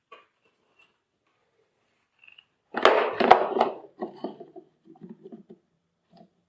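Handling noise of vacuum cleaner parts being worked on: a burst of clatter about three seconds in, then several lighter knocks and scrapes.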